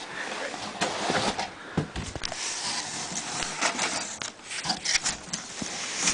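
Packaging rustling and scraping, with scattered knocks and clicks, as a mid-tower computer case is wrestled out of its box.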